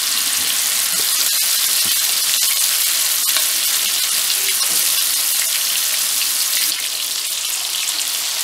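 Chicken kebab patty shallow-frying in hot oil in a frying pan: steady sizzling with scattered sharp crackles, most of them in the first few seconds.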